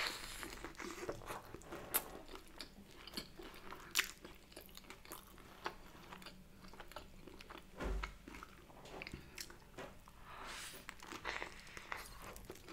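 A person biting into and chewing a soft sesame brioche bagel filled with cream cheese, air-fried bacon, fried egg and mushrooms: a bite at the start, then chewing with many small clicks, and another bite near the end.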